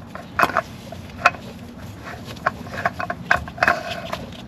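Scattered light clicks and taps of a new spin-on oil filter being handled and threaded on by hand.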